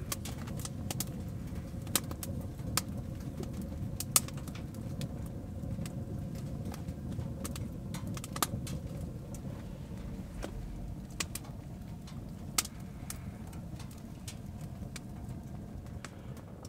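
Small wood-burning tent stove with a fire going: a steady low rumble with sharp, irregular crackles and pops from the burning wood, the loudest about four seconds in.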